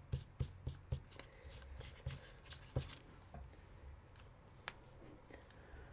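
Black marker pen scribbled back and forth on copier paper, quick scratchy strokes about four a second, stopping about three seconds in. One sharp click follows near the end.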